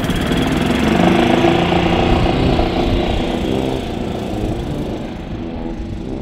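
Golf cart's small engine running as the cart drives off across the grass, growing fainter over the last couple of seconds as it pulls away.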